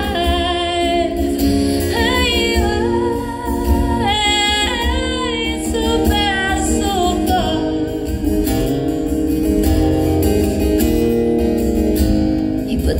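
A woman singing live with a strummed acoustic guitar, her voice drawn out in long, gliding notes. About halfway through the voice drops out and the guitar carries on alone.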